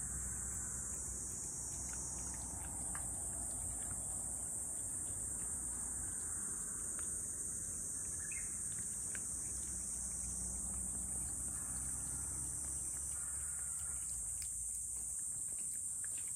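A steady, high-pitched insect chorus chirring without a break over a low background rumble, with scattered faint clicks.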